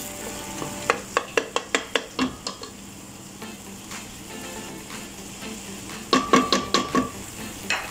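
A wooden spatula scrapes and knocks against a stainless steel pot while stirring chicken in a thick, sizzling tomato-paste and spice mixture. There is a quick run of knocks about a second in, and another cluster near the end with a brief metallic ring.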